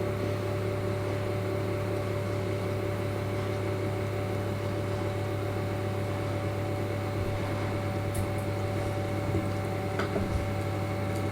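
3D printer standing idle with its fans running: a steady, even hum with a few faint clicks near the end.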